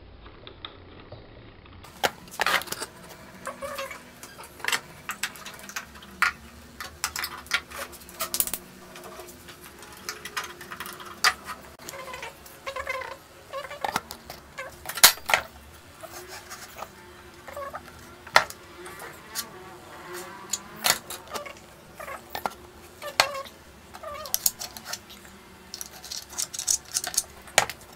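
Irregular knocks and clatter of plywood pieces and hand tools being handled and set down on a wooden workbench.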